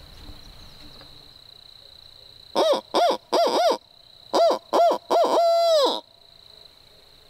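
Loud owl hooting blown by a turkey hunter on an owl locator call, in the barred-owl rhythm: several short arched hoots in two groups, ending in one long drawn-out note that falls away. This is a locator call used to get roosted gobblers to gobble back.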